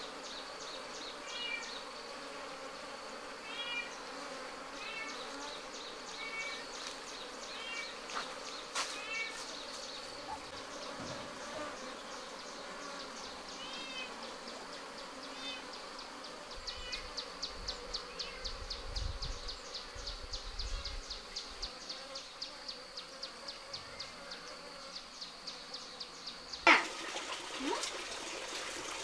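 Honey bees buzzing steadily around a wooden box hive, over a high steady insect trill and short chirps repeating every second or two; a sudden sharp knock near the end.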